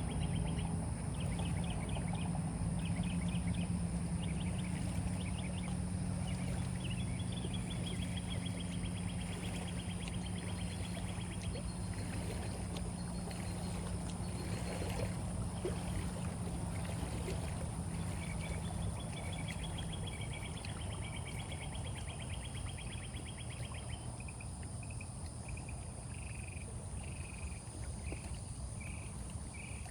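Steady low hum of a boat motor that stops about twenty seconds in, with insects chirping in short repeated trains of high pulses throughout.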